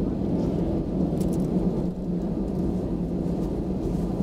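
Steady cabin noise of an Airbus A320 taxiing after landing: the engines at idle give a constant low hum over a rumble from the airframe and wheels.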